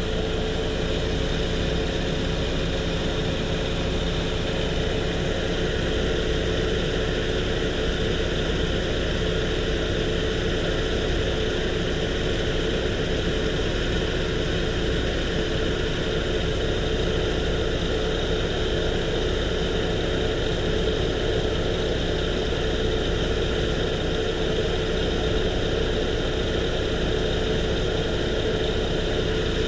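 1997 Saturn SL2's 1.9-litre four-cylinder engine idling steadily, with the AC compressor running during a refrigerant recharge.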